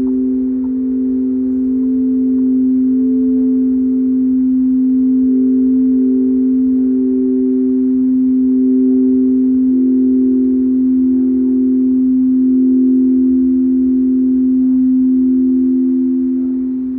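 Ambient background music: a steady low drone with slowly changing higher held notes above it, in the manner of a singing bowl.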